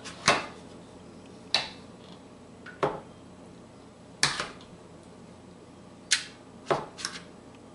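A metal scoop and a spatula knocking and scraping against a mixing bowl and muffin tin as batter is portioned into paper liners: about seven short clinks, a second or so apart.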